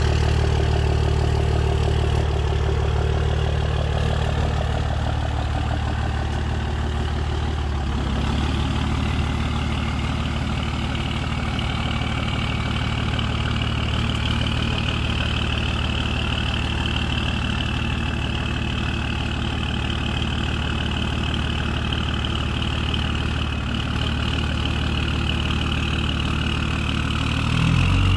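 Dodge Ram pickup's engine running steadily at low revs while the truck pulls on a tow cord. The note shifts slightly about a quarter of the way in, and a thin high whine holds above it through the second half.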